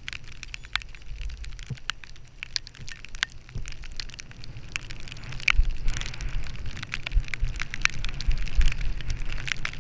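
Skis sliding over snow with a dense crackle of small clicks and scrapes, over a low wind rumble on the microphone; it all grows louder a little past halfway.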